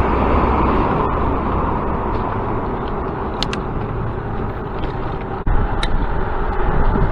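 Wind rushing over a handlebar-mounted camera's microphone on a moving bicycle, with road and tyre rumble underneath. A few brief high clicks come about three and a half seconds in and again near six seconds.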